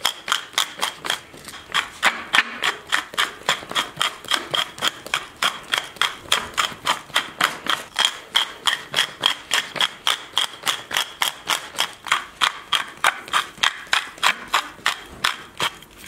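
Salt and pepper being dispensed from a clear plastic seasoning container onto pounded beef: a steady run of quick rattling clicks, about four a second, stopping near the end.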